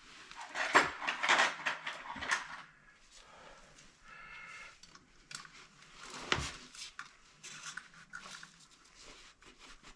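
Metal tool scraping, clicking and knocking against a Tapcon concrete screw set in a concrete slab as it is worked loose, in irregular strokes, with a brief high squeak about four seconds in and a sharper knock past the middle.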